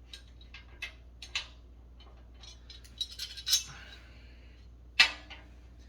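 Metal clinks and clanks as the steel legs and screw hardware of a Fltom tent stove are handled and fitted against the stove body: scattered light taps, a quick run of clinks past the middle, and one louder ringing clank near the end.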